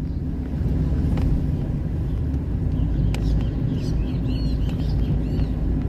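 Steady low rumble of a car's engine and tyres heard from inside the moving car. A few faint high chirps come about four to five seconds in.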